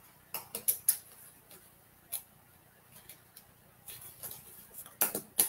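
A sheet of card paper tearing along a freshly rolled perforation line: a string of short, irregular crackling ticks as the small paper bridges snap, growing denser and louder near the end.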